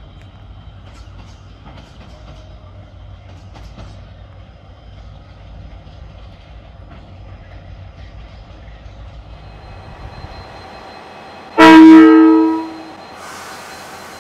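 KiwiRail DFB-class diesel locomotive approaching with its engine rumbling low and steady, then one loud horn blast about a second long near the end.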